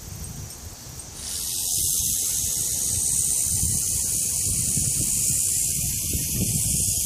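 Bull snake hissing: a loud, steady, airy hiss that starts about a second in and is held without a break. This is the bull snake's defensive hiss, made by forcing air out past its throat.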